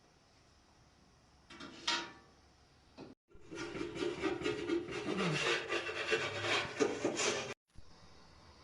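Rough, gritty scraping or rubbing, likely on wood: a short scrape about a second and a half in, then steady scraping for about four seconds that starts and stops abruptly.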